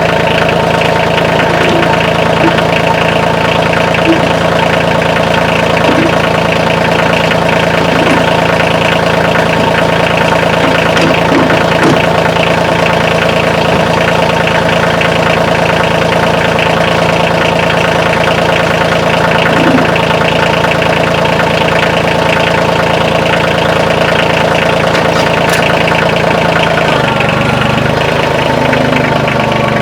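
Kioti CK2610 compact tractor's three-cylinder diesel engine idling steadily while it warms up after a cold start. The low note shifts slightly near the end.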